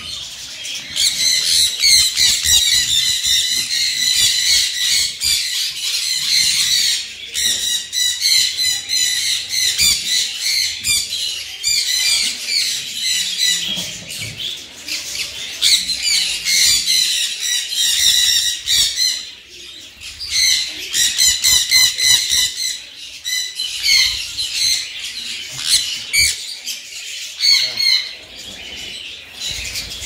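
A flock of caged parrots and parakeets screeching and chattering loudly without pause, with wings flapping now and then.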